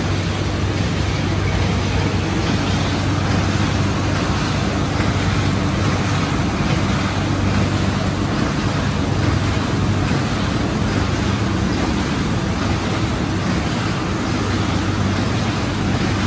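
A 1987 MAN Roland 800-series sheet-fed offset press, with two printing units and a coating tower, running and printing sheets: a steady, even machine drone with a low hum underneath.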